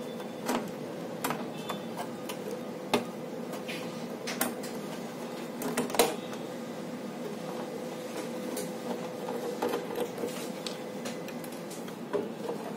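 Scattered clicks and knocks of the battery bracket on a platform weighing scale's indicator being handled and taken off, over a faint steady hum.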